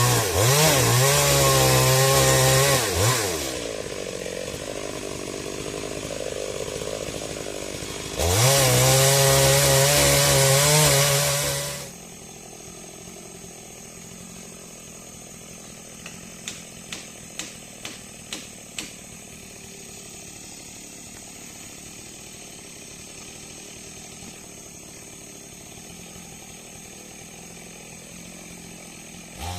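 Two-stroke chainsaw cutting into a large tree trunk at full throttle, easing off after about three and a half seconds, then revving hard again for about four seconds before dropping away to a low steady hum. Near the middle comes a run of about eight sharp knocks, roughly a quarter-second apart.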